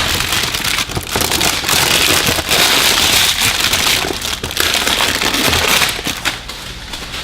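Packaging of a battery maintenance tool kit crackling densely as it is handled and opened, a rapid run of small crinkles and clicks that eases off near the end.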